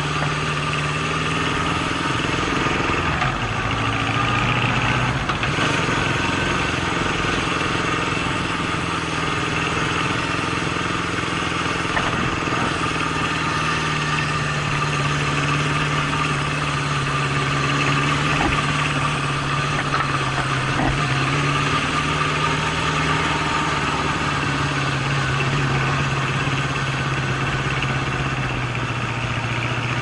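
Honda CB750's inline-four engine running as the motorcycle rides along a rough concrete forest road, its note dipping and rising a few times with the throttle.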